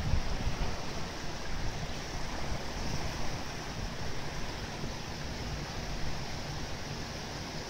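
Floodwater flowing across a road, a steady rushing noise.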